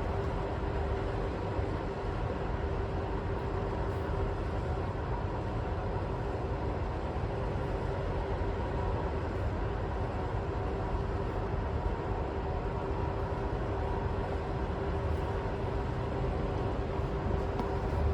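Steady city background noise: a low rumble with a constant mechanical hum held at one pitch, unchanging throughout.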